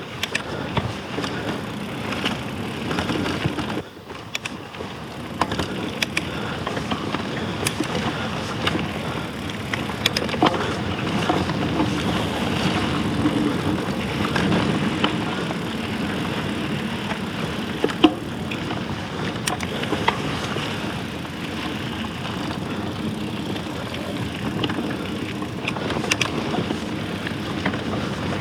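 Klein Attitude mountain bike riding fast over dirt singletrack: steady tyre-on-dirt rolling noise with the bike rattling, and sharp knocks over bumps. The loudest knock comes about 18 seconds in.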